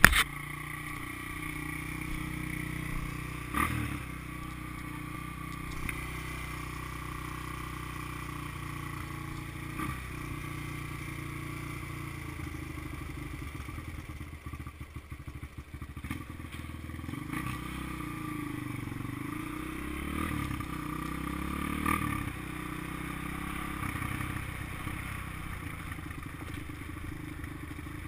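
Honda XR200 dirt bike's single-cylinder four-stroke engine running steadily, with revs rising and falling in the second half as the bike rides off along a gravel trail. A sharp knock comes right at the start.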